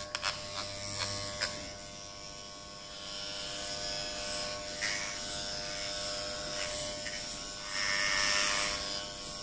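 Daiyamondo FYC RF-666 corded electric hair clipper running with a steady buzz while its blades cut through leg hair. There are a few clicks near the start, and from about three seconds in a rhythmic rasping about twice a second as the blades pass through the hair.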